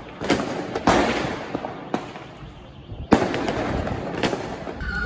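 Fireworks exploding: four loud bangs, each with a long echoing tail, and a fainter bang about two seconds in.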